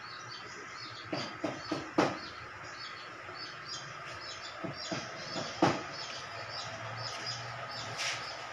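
Small birds chirping over and over in the background, with a series of sharp clicks and knocks from a rotary screen-printing press being handled. The knocks come in a quick cluster between about one and two seconds in, then again around five and a half seconds, which is the loudest.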